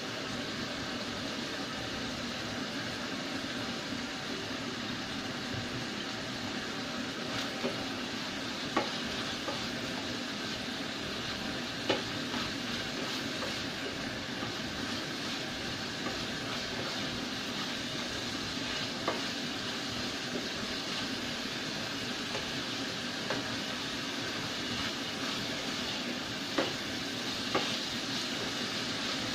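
Ground pork sizzling as it fries in a stainless steel saucepan, stirred with a spatula that clicks and scrapes against the pan a few times.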